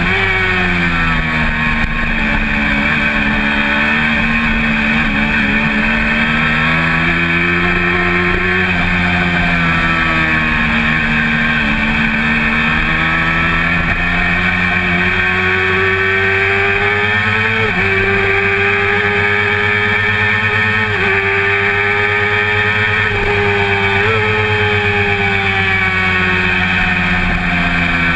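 Honda CBR400RR's inline-four engine running at racing revs, recorded on board with steady wind rush. Its pitch drops at the start, then rises and falls with the throttle through the corners, with a few quick jumps in pitch in the second half.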